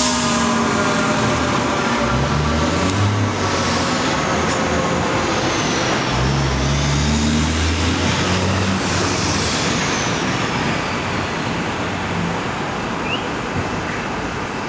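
A 2020 Seagrave fire engine pulling away on a call: its diesel engine rumbles and swells twice as it accelerates, while its siren's steady tone slides down and fades in the first seconds and a siren wail rises and falls over the top, with city traffic around.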